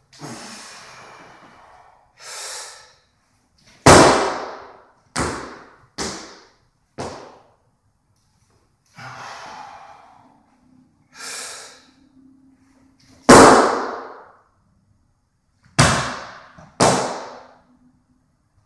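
Barbell jerks: sharp breaths, then a loud stamp about four seconds in as the feet land on the wooden platform, followed by lighter steps as the feet recover. The same pattern repeats after more heavy breathing, with the loudest stamp near the middle of the clip and two more steps after it.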